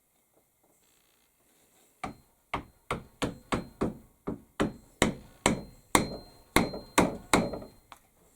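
A hammer striking about fifteen times at a steady two to three blows a second, starting about two seconds in, with a faint metallic ring. The blows are driving a wedge into the axe handle to hang the head.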